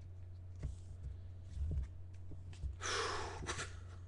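Quiet handling of a trading card pack with a few faint clicks, over a steady low electrical hum. About three seconds in there is a short, sharp breath close to the microphone.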